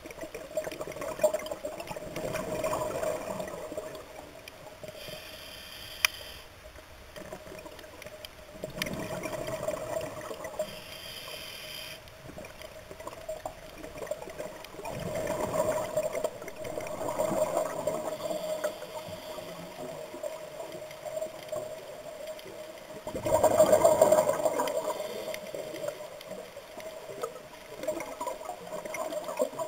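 Scuba regulator breathing underwater: bubbling exhalations every few seconds, the loudest about two-thirds of the way through, with short hissing inhalations between them, over a steady hum.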